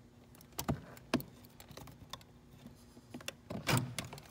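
Plastic and metal clicks and taps as needle-nose pliers squeeze the tabs of the plastic retainer clip on a Ford F-150's door-latch cable and push it free. A sharp click comes a little past a second in, and a duller knock near the end, over a faint steady hum.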